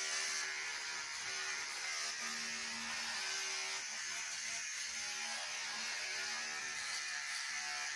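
Electric hair clippers buzzing steadily as they are run through short hair.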